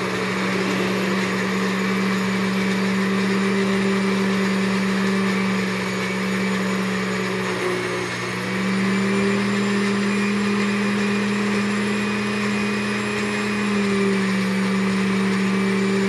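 Countertop electric blender running steadily, blending peaches and yogurt into a smoothie. The motor's hum dips briefly about halfway through, then steadies again.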